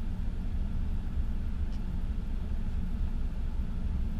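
Steady low rumble of an all-wheel-drive car heard from inside its cabin, its engine idling while stopped in a queue at a stoplight.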